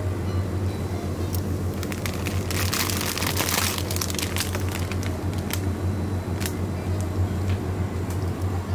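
Plastic food packaging crinkling and crackling as it is handled, densest about two and a half seconds in, over a steady low hum.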